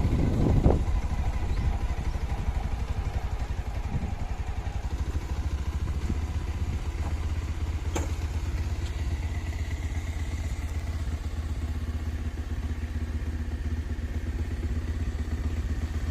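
Motor vehicle engine running steadily with a low rumble, with a thump just under a second in and a sharp click about eight seconds in.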